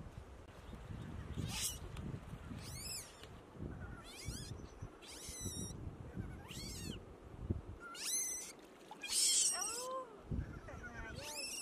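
Repeated high-pitched animal cries, about one a second, each sweeping in pitch, over a low rumble that drops away about eight seconds in.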